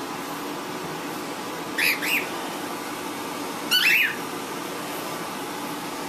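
Cockatiel calling in short chirps, a pair about two seconds in and another pair about four seconds in, over a steady background hum.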